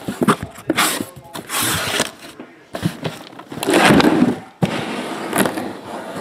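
Cardboard and shrink-wrapped card boxes scraping and rustling as they are slid out of a cardboard shipping case and set down, in several irregular bursts. The loudest is about four seconds in.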